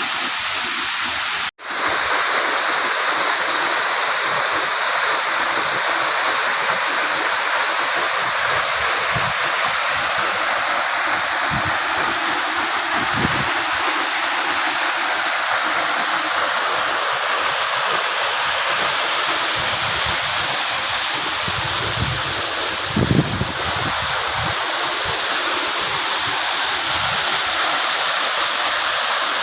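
Waterfall's steady rush of falling water, with a brief dropout about a second and a half in.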